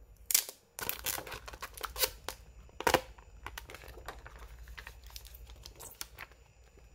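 Clear plastic protective film being peeled off a new phone: a run of crackling and tearing, loudest in the first three seconds, then thinner, fainter crackles.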